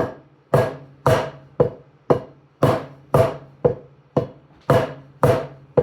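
Taiko bachi strokes at a slow, even pace of about two a second, some strokes accented louder than the rest, each one ringing briefly.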